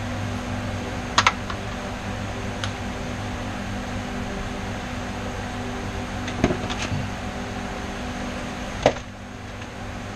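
Steady fan-like machine hum, with a few sharp metallic clicks and taps at the rear axle as a MIG welding gun is handled against the metal. No welding arc is heard.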